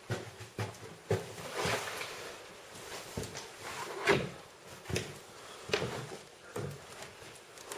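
Footsteps of someone walking through a building, a knock or scrape with each step at a little under one a second.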